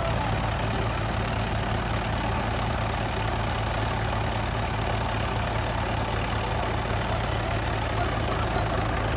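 Mahindra 575 DI tractor's four-cylinder diesel engine running steadily at low revs.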